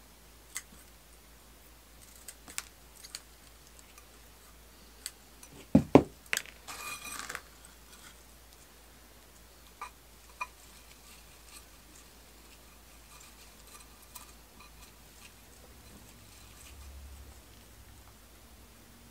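Hands handling a spider plant's roots and gritty potting mix in a shallow pot set in a plastic tray: scattered light clicks and knocks. A louder double thump comes about six seconds in, followed by a brief scratchy rustle.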